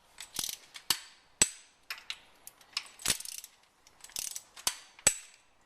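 Torque wrench ratcheting in short runs while cylinder head bolts are tightened to 22 lb-ft with a 10 mm spline socket. A louder single sharp click stands out about every two seconds.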